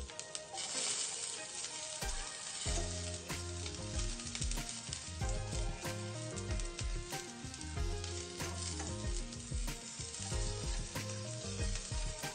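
Ginger, garlic and bell pepper sizzling in hot oil in a stainless steel frying pan, stirred with a spatula: the first stage of frying the aromatics till brown. Background music with a steady beat plays underneath.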